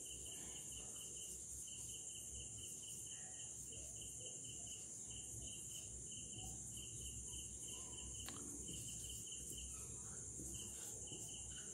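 Faint crickets chirping in rapid pulse trains broken by short pauses, over a steady high hiss. There are faint marker strokes on a whiteboard and a single sharp click about eight seconds in.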